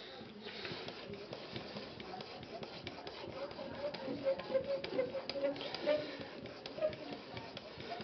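Sharpening stone of an Edge Pro Apex drawn in repeated short strokes along the edge of a ZDP-189 steel knife blade, a scraping, rasping rub, busier in the second half.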